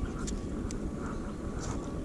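Steady low rumbling noise with a faint thin tone, and a few small clicks and ticks from handling a fishing rod and a jig.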